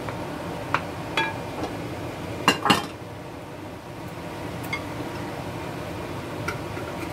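Wooden spoon knocking and clinking against a glass cooking pot while sautéed vegetables are stirred, with a few scattered knocks and two louder ones about two and a half seconds in.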